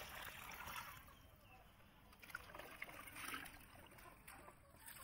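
Water trickling from a plastic jug onto chopped napa cabbage in a steel bowl, the pour tailing off about a second in. After that comes faint splashing and rustling as a hand washes the leaves in the water.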